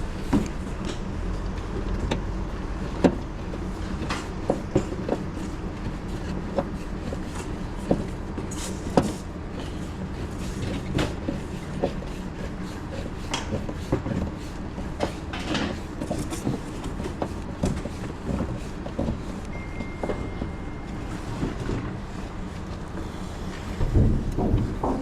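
Scattered clicks and light knocks of tools and parts being handled during air conditioner repair work, with a cluster of louder knocks near the end, over a steady low background rumble.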